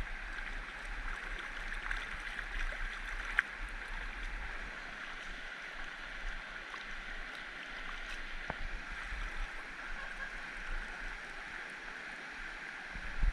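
Water of a stream flowing and gurgling, a steady even rush with a few faint ticks.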